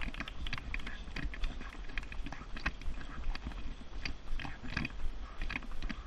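A runner's footfalls on a paved path, about three steps a second and evenly spaced, over a low steady rumble from a jogging stroller rolling along.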